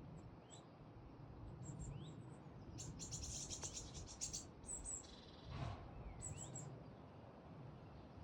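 Woodland birds calling quietly: scattered short, high chirps and rising notes, with a rapid high trill about three seconds in. A brief noisy sound comes a little past halfway, over a faint low background.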